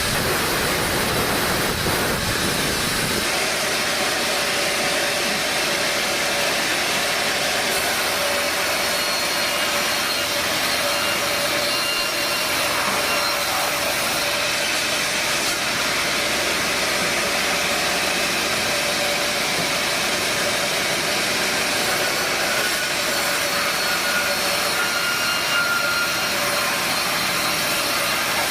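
Sawmill machinery running: a loud, steady mechanical noise with a constant hum in it. The deep rumble drops away about three seconds in.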